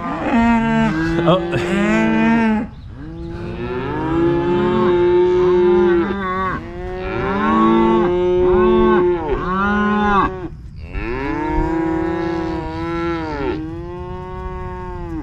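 Beef cows and calves mooing over one another, one call after another, some deeper and some higher. The mother cows are calling to check on their calves after being separated for vet work.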